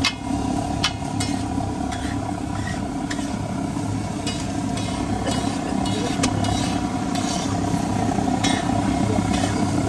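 Masala oil sizzling on a large flat griddle with halved boiled eggs frying in it. Metal ladle and spatulas clink and scrape against the griddle many times, over a steady low hum.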